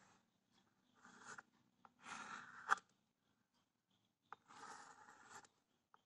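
Faint chalk scraping on a blackboard as circles are drawn, in three short strokes, with a sharp tap of the chalk near the middle.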